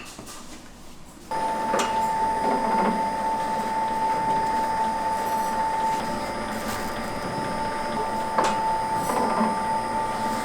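An electric machine motor switches on about a second in and runs with a steady high whine, with a couple of sharp clicks, a kitchen machine such as a noodle press.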